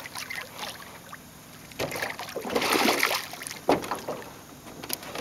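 A hooked bass splashing and thrashing at the water's surface beside a small boat, loudest between about two and three seconds in. A sharp knock follows shortly after.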